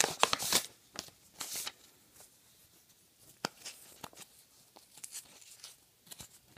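Packaging being torn open and handled by hand while unpacking a mailed trading-card package: several quick tearing rips in the first couple of seconds, then soft scattered rustles and a single sharp click about three and a half seconds in.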